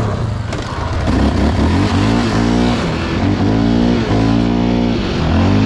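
Quad (ATV) engines: one runs steadily while the bump-started quad's engine catches and revs, its pitch rising and falling about five times from about a second in.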